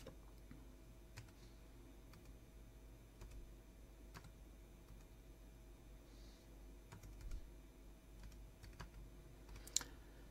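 Faint computer keyboard typing: scattered single keystrokes, with one sharper click near the end, over a low steady hum.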